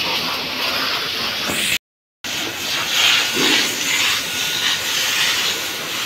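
Hose water jet hissing and splashing onto cattle and the wet barn floor, steady apart from a brief total dropout about two seconds in.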